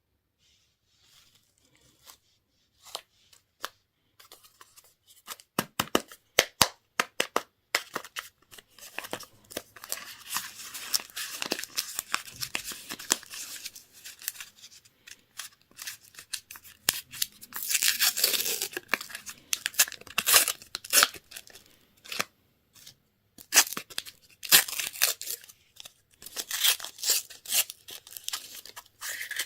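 Candy wrappers being torn open and crinkled by hand: sharp crackles and tearing noises, sparse at first and dense from about eight seconds in.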